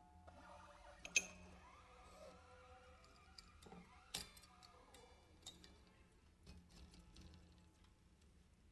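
Near silence broken by sparse soft clicks and ticks and a faint wavering tone: the very quiet tail of a free improvisation for soprano saxophone and prepared guitar, with sharper clicks about a second in and about four seconds in.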